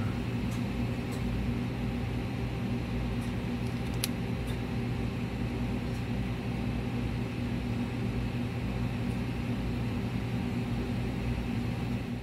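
Steady low machine hum of fan-type room equipment, with a few faint light clicks.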